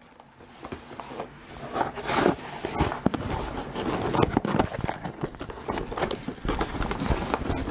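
A long cardboard box holding a light stand being opened by hand: irregular scraping and rustling of cardboard and packaging, with many small clicks and knocks.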